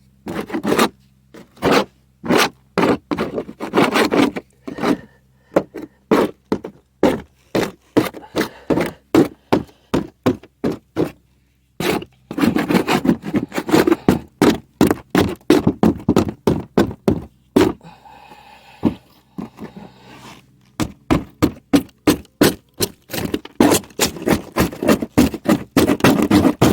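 Hand scraper scraping old sealant off the seam of a flat metal roof in quick, repeated strokes, in runs broken by a couple of short pauses.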